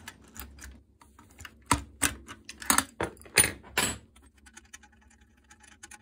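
An open-end wrench clinks against the brass hex nut of an espresso machine's pressure switch as the nut is loosened. About five sharp metallic clicks come in the middle, with lighter ticks before them, then fainter ticking as the switch is turned by hand.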